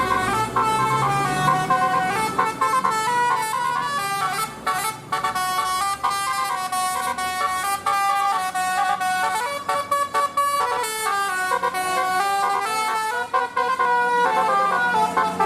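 Bus telolet basuri musical horn playing a melody, its tones stepping from note to note almost without break, with short pauses about five and ten seconds in.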